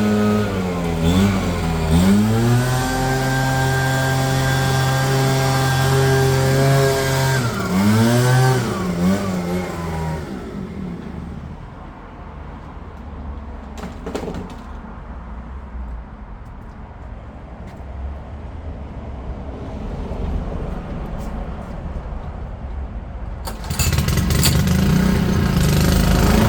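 Small petrol engine of garden power equipment running at a steady pitch. It dips and picks up again twice, then cuts out about ten seconds in. After a quieter stretch with a single knock, an engine starts running loudly again near the end.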